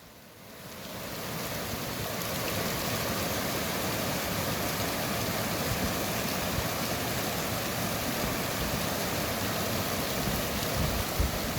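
Mountain valley stream rushing steadily, rising in over the first second and a half.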